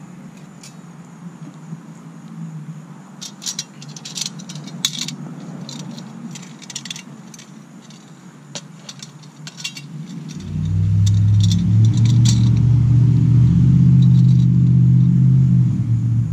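Light metallic clinks and rattles as a metal face ring is handled and fitted over a wet-niche pool light's lens. About ten seconds in, a loud, steady, low engine-like drone starts and becomes the loudest sound.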